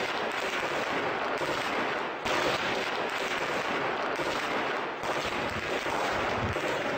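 Dense, continuous crackling noise like heavy gunfire and blasts, with a sharp new surge about two seconds in.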